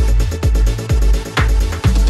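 Electronic dance music with a heavy kick drum on a steady beat, about two beats a second.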